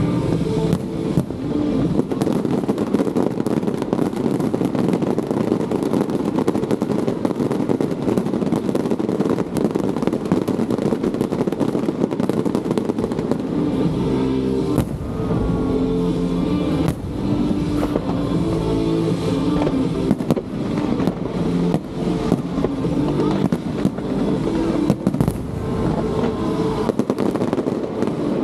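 Fireworks display going off: a dense, continuous run of booms and crackling bursts with no pause.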